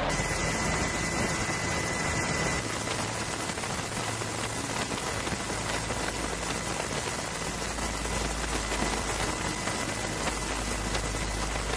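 A steady, even hiss with a faint thin high tone running through it.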